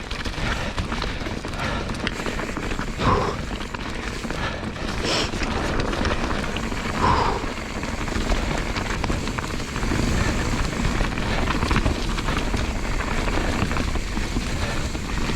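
Mountain bike riding fast down a wet, muddy, rocky trail: a continuous rough rush of tyres through mud and water and the bike rattling over rock, with a few brief louder moments.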